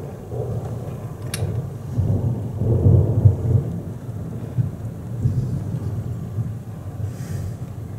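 Thunder rumbling low and rolling, swelling to its loudest about two to three and a half seconds in, then easing to a lower grumble.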